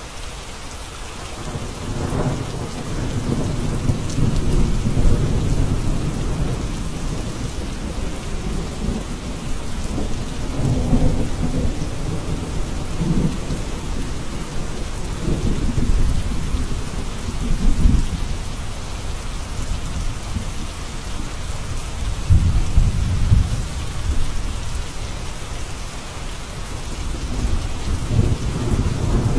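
Steady rain falling, with deep thunder rumbling and rolling in and out several times.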